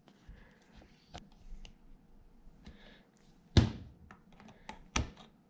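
Small clicks and taps of a split pin being worked through a castle nut on a sway bar link and needle-nose pliers gripping it. Two sharper knocks stand out, one a little past halfway and one near the end.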